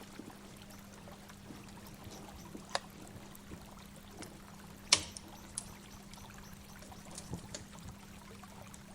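Water from a waterfall pouring and trickling steadily, with a few sharp clicks, the loudest about five seconds in, over a low steady hum.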